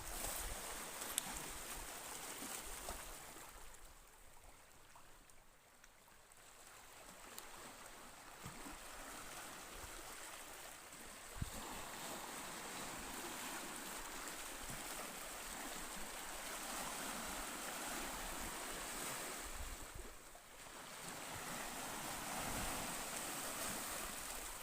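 Black Sea surf washing onto the shore, swelling and falling back in an even rush, with a quieter spell a few seconds in and a short lull about twenty seconds in. One sharp click about halfway through.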